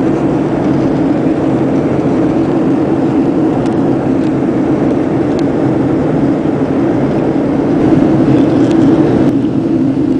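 Steady cabin noise of a Boeing 737-700 in flight, heard from a window seat over the wing: a constant roar of engine and airflow with a strong low hum.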